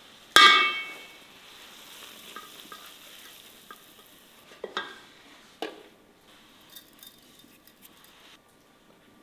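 A metal frying pan knocks against an enamel bowl with a loud, ringing clang, then fried grated carrots are scraped and tipped out of the pan with a soft hiss. Two sharper knocks follow, as the pan is tapped on the bowl.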